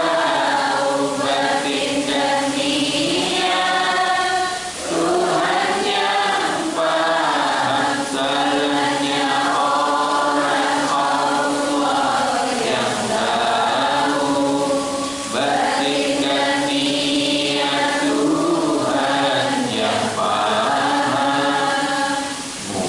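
A devotional song chanted in Indonesian, a man's voice on a microphone leading and the congregation singing along in long held phrases that pause briefly every few seconds.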